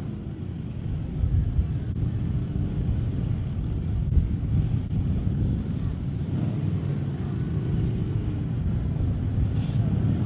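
Harley-Davidson police motorcycles' V-twin engines running at low speed through tight manoeuvres, a steady low rumble from several bikes.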